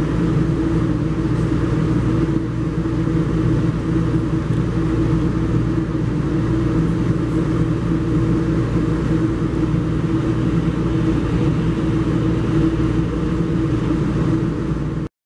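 Inside a moving passenger train: a steady rumble of wheels on rail with a constant low hum, cutting off suddenly near the end.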